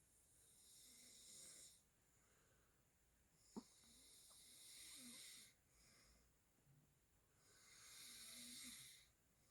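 Maltese dog snoring softly in its sleep: three long, hissing snoring breaths about three seconds apart, with one short sharp click a third of the way in.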